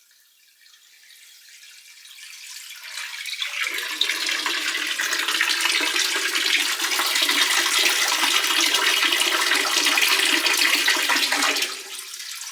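Well water running in a steady stream into a bucket. It builds up over the first few seconds, runs evenly, and drops off sharply near the end.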